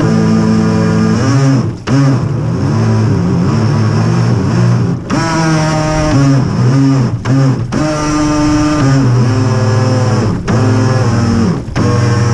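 Radio-controlled boat's motor running, its pitch rising and falling with the throttle. It drops out briefly several times, when the throttle is let off.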